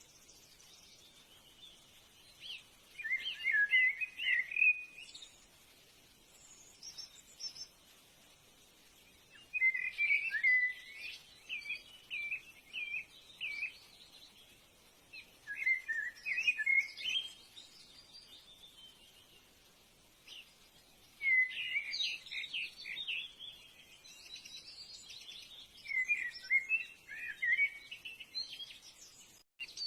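Birds singing: phrases of quick, bright chirps lasting two to four seconds each, coming about every five or six seconds with short pauses between them.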